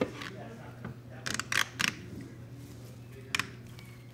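Sharp metal and plastic clicks as a hose pinch clamp is worked loose and the lower coolant hose is freed from a plastic coolant expansion tank: one click at the start, three close together about a second and a half in, and one more near the end, over a steady low hum.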